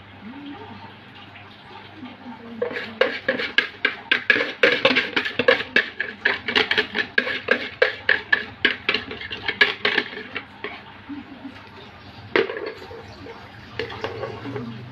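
Wire whisk working batter through a stainless-steel mesh sieve: a fast run of metallic clicks and scrapes against the mesh and rim, several a second. After a lull there is a single sharp metal knock, then more scraping near the end.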